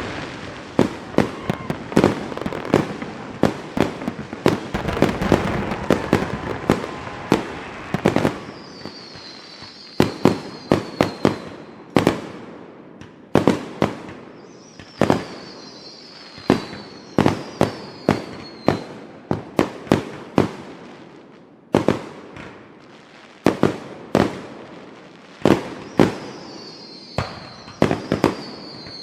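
Fireworks going off: a dense run of crackling bangs for the first several seconds, then separate loud bangs a second or two apart. A high, falling whistle-like tone sounds three times.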